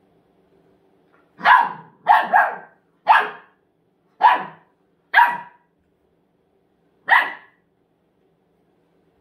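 Golden retriever puppy barking: seven short barks, a quick pair about two seconds in, then single barks about a second apart, the last after a longer gap.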